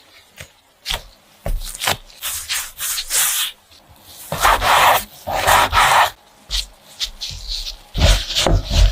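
Hands rubbing and working soft mochi dough, a series of irregular rubbing strokes with a few small clicks.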